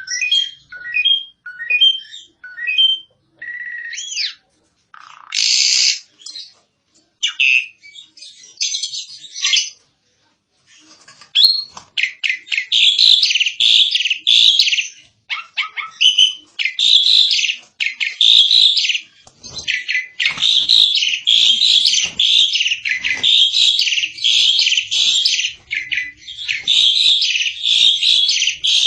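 Asian pied starling (jalak suren) singing: a run of short whistled notes stepping down in pitch, a few varied calls, then after a short pause a long, fast chattering song.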